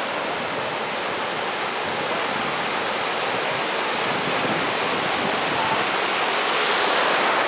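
Ocean surf washing through shallow water, a steady rush of foam that swells near the end as a small wave breaks close by.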